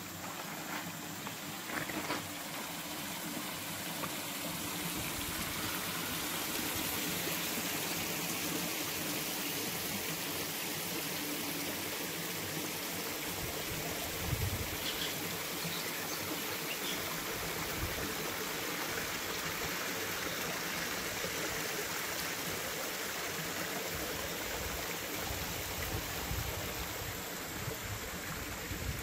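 Water of a shallow stream running steadily over stones, an even, unbroken wash of noise.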